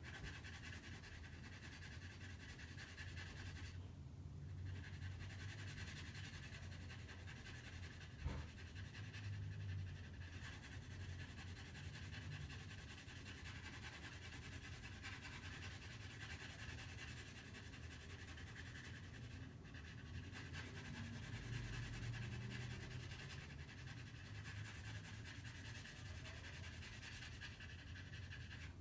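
Faint scratchy rubbing of a graphite pencil shading on drawing paper, over a low steady hum, with a single click about eight seconds in.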